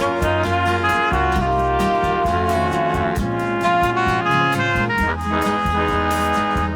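Mellow 1970s easy-listening instrumental music with a brass section carrying the melody over bass and a steady beat.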